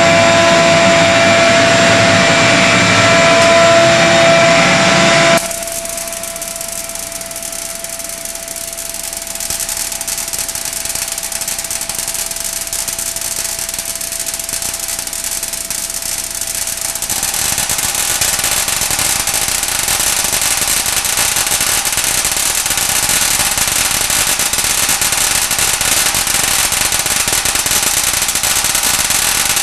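A high-voltage Tesla-coil apparatus first runs with a steady hum of several held tones. The sound then changes abruptly to a dense, rapid crackle of electric arcs discharging in a tank of water, which grows louder about seventeen seconds in.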